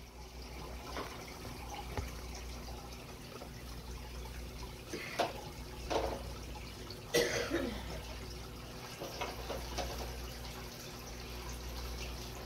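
Aquarium water bubbling and trickling from the tank's filter and air stream over a steady low hum, with a few brief knocks and scrapes near the middle.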